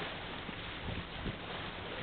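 Outdoor river ambience: wind rushing on the microphone over water noise, with a faint steady low hum of a distant engine underneath and a few soft wind thumps.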